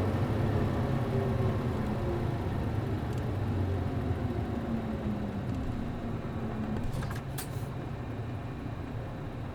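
City bus's MD92TJ diesel engine running, its note falling steadily as the bus eases off and slows. A brief hiss comes about seven seconds in.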